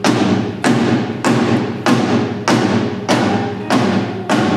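Mid tom on a drum kit struck alone at a steady pace, about eight even hits, each ringing out before the next: one drum played on its own to set its level in a soundcheck.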